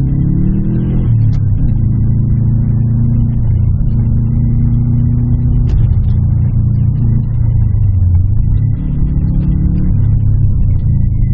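Car engine heard from inside the cabin while driving, its pitch rising over the first second, then dropping and settling into a steady run, with a few more changes in engine speed later.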